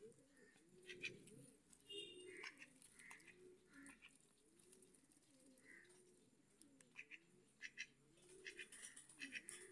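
Domestic ducks giving faint, short, low calls over and over, with scattered light clicks.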